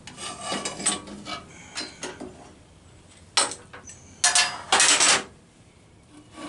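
A metal screw clamp being loosened and taken off a square steel tube on a drill press table: light clicks and scrapes, then a sharp clank about halfway through, followed by the loudest sound, a metal-on-metal scrape lasting about a second.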